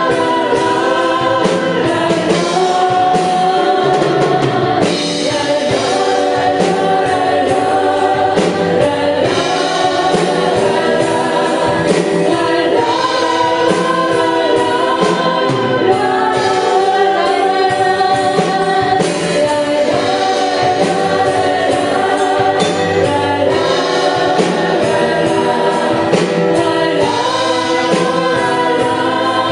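Praise band and singers performing a contemporary Christian worship song, with group vocals over full band accompaniment.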